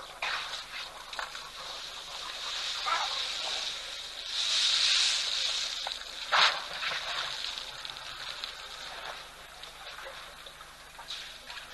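Elephants drinking at a muddy waterhole: water splashing and sloshing as their trunks draw it up and pour it, in short irregular bursts. There is a louder rushing burst a little before the middle and a sharp, loud splash-like hit just after it.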